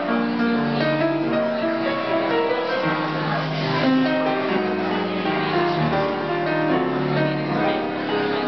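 Grand piano played solo: a melody in the middle register over held bass notes and chords, running on without a pause.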